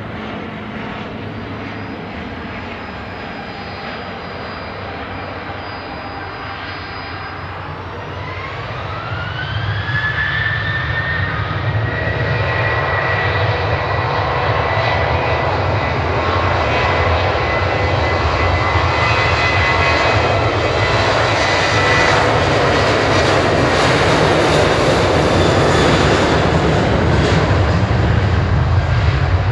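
Boeing 737-800 airliner's CFM56-7B turbofan engines spooling up for takeoff. About eight seconds in, a whine rises in pitch and settles into a steady high tone, and the engine noise grows louder as the jet begins its takeoff roll.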